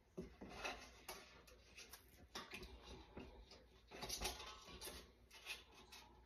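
Faint, irregular clinks and scrapes of a metal utensil against a stainless steel saucepan as canning jar lids are lifted out of their sterilizing water, with the loudest clink about four seconds in.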